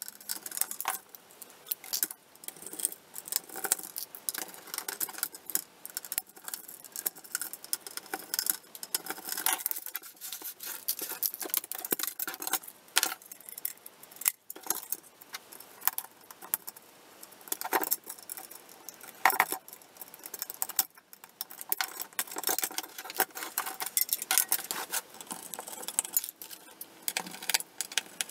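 Small metal parts clinking and knocking as a video camera is taken apart by hand: screws, a screwdriver and metal chassis pieces are handled and set down on a workbench. It comes as an irregular run of light clicks, taps and rattles.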